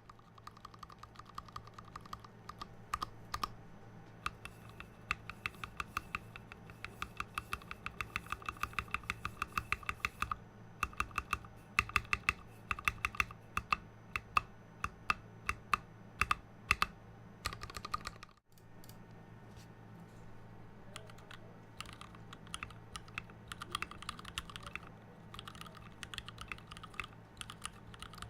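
Fast, continuous typing on a GON NerD 60% mechanical keyboard with Gateron Clear linear switches (62g springs, milky housings), PBT keycaps in an acrylic case, and lubed Cherry stabilizers. The sound cuts out for a moment about eighteen seconds in.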